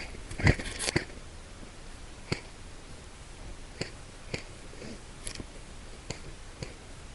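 Airsoft guns firing single shots: a string of short, sharp clicks, about eight of them at irregular intervals of roughly half a second to a second and a half, the loudest near the start.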